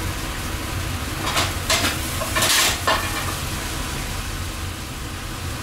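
Lamb frying in a pan and being stirred, sizzling in short bursts with some clatter of the pan, mostly in the first half. A steady low machinery hum runs underneath.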